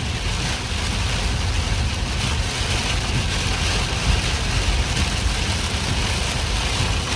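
Severe thunderstorm noise: steady heavy rain and wind with a deep, fluttering low rumble.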